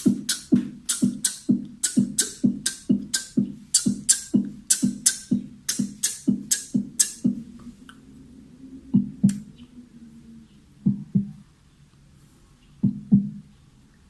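A man making a sound effect with his mouth, beatbox-style: an even run of low thumps, each with a hissing click on top, about three and a half a second, stopping about seven seconds in, followed by a few sparser thumps in pairs.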